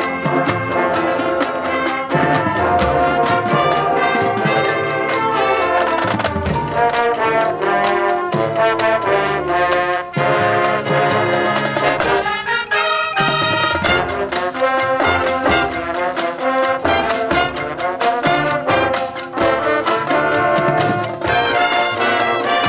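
A marching band playing its show: massed brass (trumpets, mellophones, trombones) carries the music over drums and the front ensemble's keyboard percussion. The lower parts drop out for about a second near the middle, then the full band comes back in.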